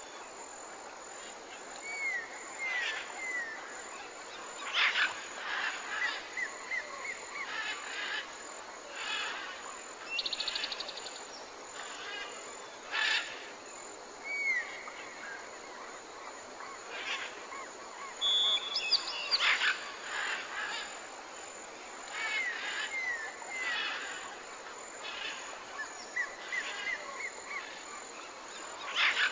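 Small birds chirping and calling over a steady background hiss: short sharp chirps, down-slurred whistles and a brief buzzy trill. The same sequence of calls comes round again after about 19 seconds, as in a looped birdsong ambience track.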